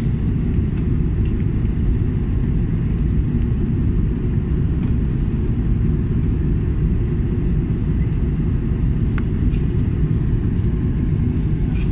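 Steady low rumble of jet engine and airflow heard from inside the cabin of an Airbus A330 in flight, with a faint tick a little after nine seconds in.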